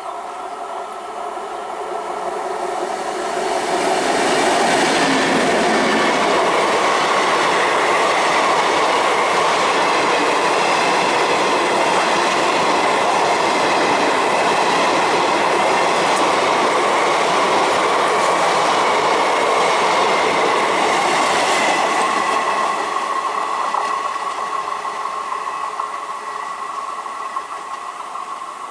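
WAP-7 electric locomotive and its passenger coaches passing close by: the rush and clickety-clack of steel wheels on rail grows over the first few seconds, holds loud and steady with a steady whine along with it, then fades near the end as the last coach goes away.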